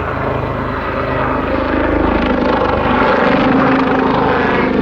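Westland Lynx military helicopter flying a display, its rotor beating steadily, growing louder about two seconds in.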